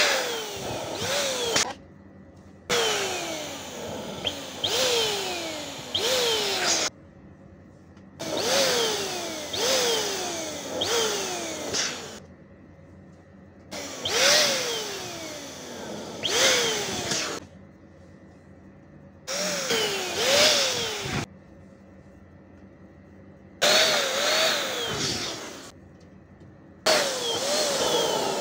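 Electric balloon pump running in about seven short bursts with brief pauses between, inflating small latex balloons; within each burst its whine falls in pitch several times.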